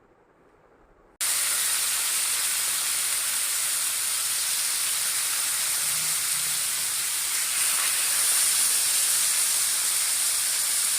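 Marinated seer fish pieces sizzling as they shallow-fry in oil, a steady, even hiss that starts suddenly about a second in.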